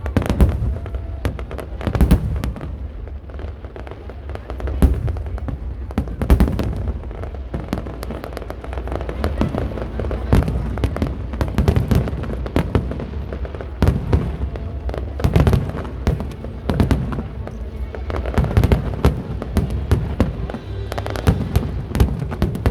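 Fireworks display: a continuous barrage of booming bursts and crackling, with loud bangs every second or two.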